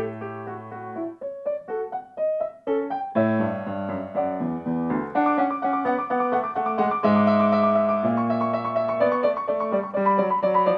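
Solo Bösendorfer grand piano played: held bass notes under quick notes in the treble, a stretch of short, separate notes about a second in, then fuller passagework that grows louder toward the end.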